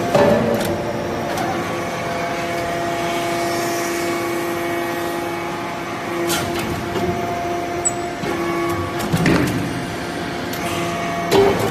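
Hydraulic metal-chip briquetting press running: its hydraulic power unit's steady hum and whine, with a few sharp knocks about six and nine seconds in and again near the end as the ram cycles.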